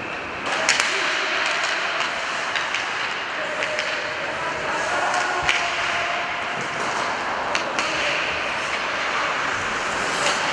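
Live ice hockey play in an arena: skates scraping on the ice over a steady hiss, with several sharp clacks of stick on puck or puck on boards, and faint distant shouts from players.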